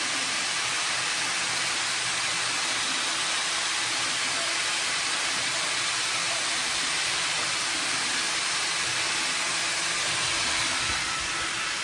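Water running steadily into the kitchen sink and down the drainpipe, a constant rushing hiss; the drain is flowing freely now that the blockage is cleared.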